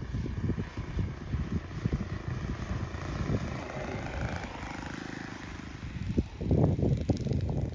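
A quarter-scale model plane's OS FS-120 four-stroke glow engine running at low throttle as the plane lands, loudest about four seconds in as it passes close. Wind rumbles on the microphone throughout, heaviest near the end.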